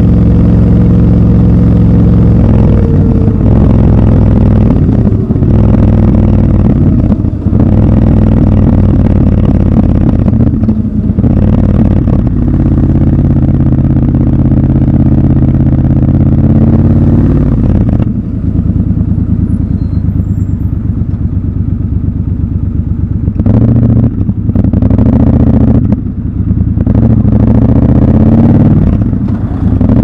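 Triumph Scrambler 1200 XC's parallel-twin engine running at low city speeds, its pitch changing with throttle and gear changes. Its note falls about two-thirds of the way through as the bike slows, then breaks off briefly several times as the throttle is closed and opened again.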